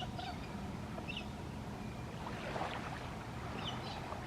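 Short, faint, high chirps from a plover, a few times, spaced irregularly like hiccups, over the steady wash of water and wind at the shore.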